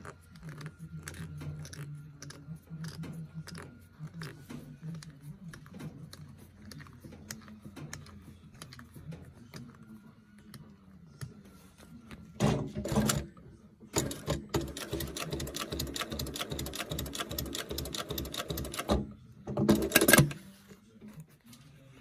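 Dürkopp Adler 867 industrial lockstitch sewing machine stitching leather. A low hum with scattered clicks gives way about twelve seconds in to a short loud burst, then about five seconds of fast, even stitching, ending with another short loud clatter as the machine stops.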